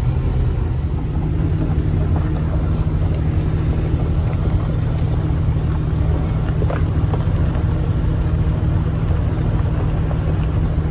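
Steady engine and road drone heard inside a Jeep's cabin while it drives along a rocky trail, towing a disabled side-by-side on a strap.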